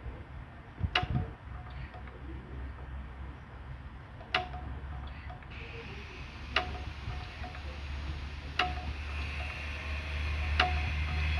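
1957 Wolseley WD8 single-cylinder stationary engine running on its first start after restoration, with a sharp tick about every two seconds. It runs louder and higher from about halfway through.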